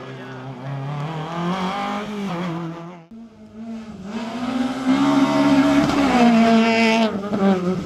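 A Citroën C2 rally car's engine revving hard as it takes a bend, then, after a cut, a Peugeot 208 rally car's engine climbing in revs through a corner and falling away about six seconds in, with a brief tyre squeal near the end.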